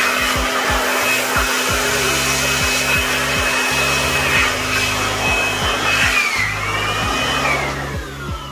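Handheld electric blower running with a steady high whine and rush of air, blowing dust out of an open UPS unit. Its pitch dips briefly about six seconds in, and it winds down near the end as it is switched off.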